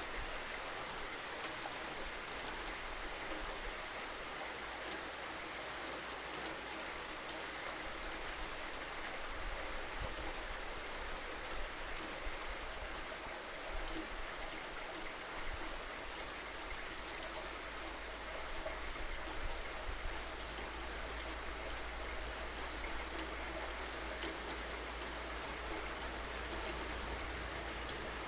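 Steady rainfall: an even hiss of rain with scattered louder drops, and a low rumble underneath that grows stronger in the second half.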